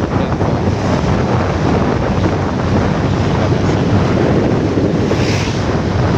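Loud, steady wind buffeting a microphone on a moving motorcycle, a deep rushing rumble that covers any engine or tyre sound.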